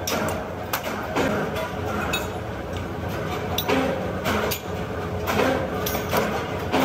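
Flat steel blade blanks cut from old leaf springs clinking and clattering against each other as they are gathered from a pile and loaded into a metal wheelbarrow, in irregular knocks over a steady low hum.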